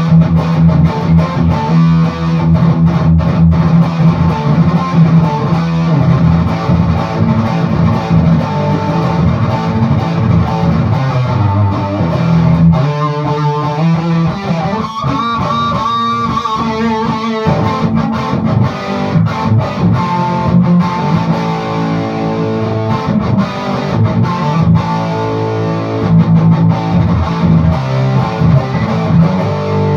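Electric guitar played through a handmade, cathode-biased tube amp with a 12AX7 and 12AU7 preamp, giving a crunchy overdrive. It plays low chords and riffs, with a higher single-note line with vibrato about halfway through. The tone sounds clear, free of the noise that the faulty preamp tube sockets had caused.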